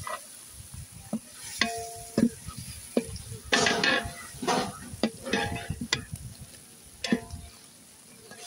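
Long-handled metal ladle stirring thick chicken masala in a large aluminium biriyani pot: irregular scraping and clinking strokes against the pot, a few of them ringing briefly, over the hot masala frying.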